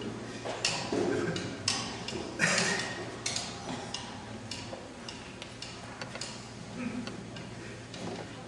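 Scattered light clicks and taps at irregular intervals, about one or two a second, over a faint murmur of voices.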